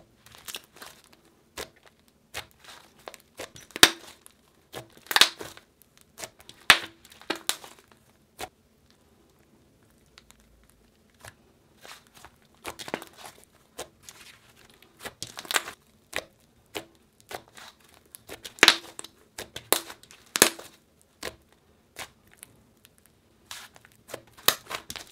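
Hands kneading, pressing and stretching a white butter slime made from glue, lotion and soft Daiso clay, giving irregular sticky crackles and small pops. There is a lull of a couple of seconds a little before the middle.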